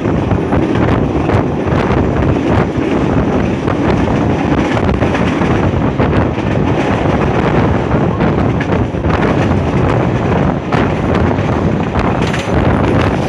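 Commuter train running along the rails, heard from on board: a steady rumble of wheels on track with frequent short clicks, and wind buffeting the microphone.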